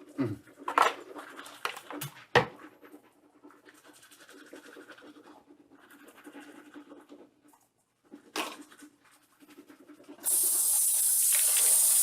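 A few scattered clicks and knocks of things being handled. Then, about ten seconds in, water is turned on and runs with a loud, steady hiss.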